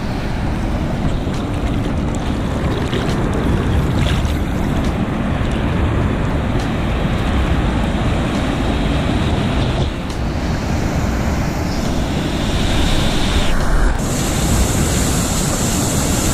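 Ocean surf breaking and water sloshing close around a camera held at the water's surface, with wind on the microphone: a loud, steady rush of noise.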